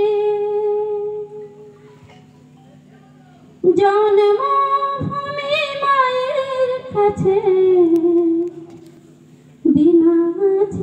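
A woman singing a wordless melody into a microphone through loudspeakers, in long held notes with pauses of about two seconds between phrases; the middle phrase steps up in pitch and wavers.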